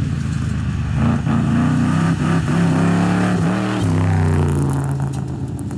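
Big Ford V8 of a 1960s full-size rally car pulling hard under acceleration, its pitch climbing, then falling sharply about four seconds in and holding steady.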